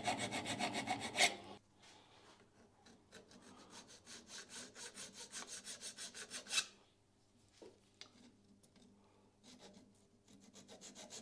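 Hand file scraping back and forth in a key slot of a cast iron machine vise base, deburring it, in quick short strokes. The strokes stop about a second and a half in, resume, fall to a few faint scrapes from about seven seconds in, and pick up again near the end.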